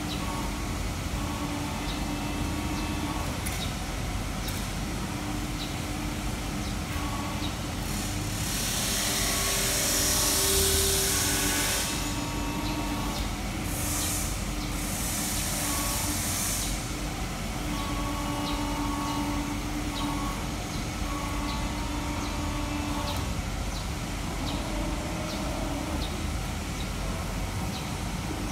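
Steady machinery noise of a factory hall, with a faint on-and-off hum and light ticks. Two long bursts of hissing come about eight and fourteen seconds in; the first is the louder.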